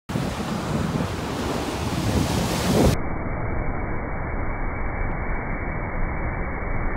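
Ocean waves breaking and surf washing up a sandy beach, with wind buffeting the microphone. The sound turns muffled about three seconds in.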